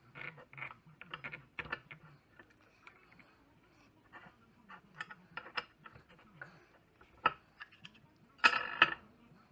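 Light clicks and taps of a steel hydraulic-cylinder piston section and its rubber seals being handled and fitted on a steel workbench. A louder clatter of metal comes near the end.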